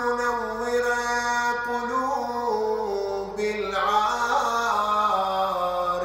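A man's voice chanting an Arabic supplication (du'a) in a slow, melodic style, holding long notes with ornamented pitch turns. The voice climbs into a higher run about four seconds in, then steps back down.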